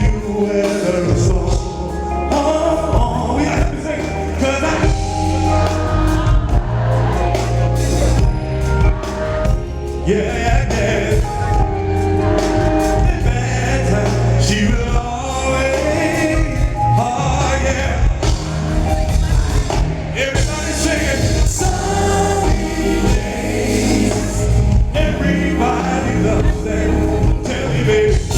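Live R&B band playing through a concert PA, with a heavy steady bass line and singing that includes backing vocals in a choir-like, gospel style.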